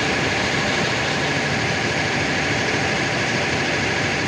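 Vibratory hammer driving steel sheet piles: a steady, unbroken mechanical drone with no letup.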